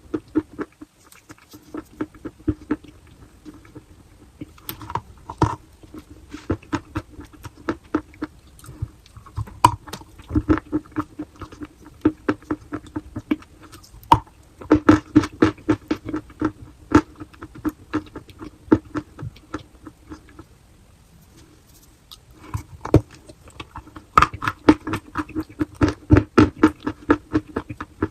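Chalk being bitten and chewed close to the microphone: rapid crisp crunches in bursts, with a short pause about two-thirds of the way through. A steady low hum runs underneath.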